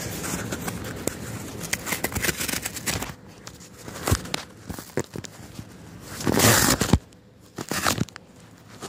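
Cardboard shipping box being torn open by hand: cardboard scraping and rustling with scattered clicks, and a loud ripping tear about six seconds in.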